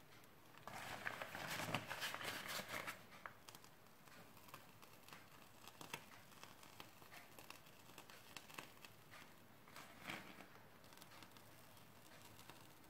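Faint rustling and crinkling of a piping bag being squeezed as whipped cream is piped, clearest for a couple of seconds near the start, then very quiet with a few small clicks.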